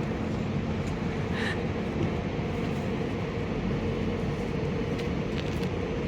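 Steady running noise of a train: an even low rumble with a faint steady hum. There is a short high chirp about one and a half seconds in.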